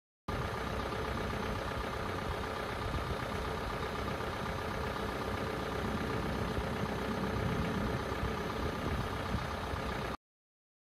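A machine running steadily, an even engine-like hum with no change in speed.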